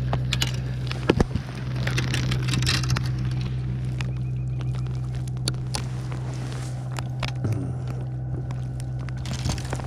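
Boat motor running with a steady low hum, with scattered clicks and taps over it and a louder knock about a second in.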